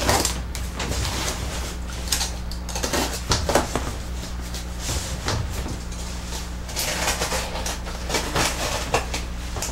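A blade slitting packing tape on a cardboard box, then the cardboard flaps being pulled open and handled: a run of short scraping and rustling strokes over a low steady hum.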